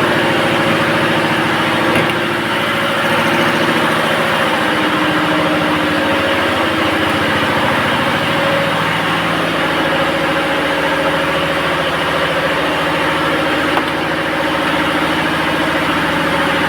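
Machinery running steadily: a continuous drone made of several steady tones that drift slightly in pitch, without pauses or strokes.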